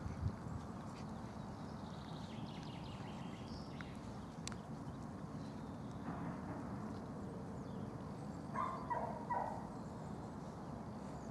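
A few short, high puppy yips in quick succession about nine seconds in, from young puppies at play, over a steady outdoor background hiss.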